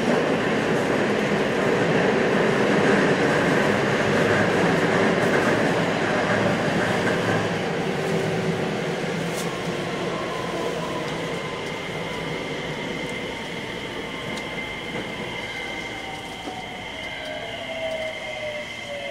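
JR West 321 series electric train running on the rails. About ten seconds in, the Hitachi IGBT inverter's motor whine appears as several tones gliding steadily down in pitch while the running noise fades, as the train slows.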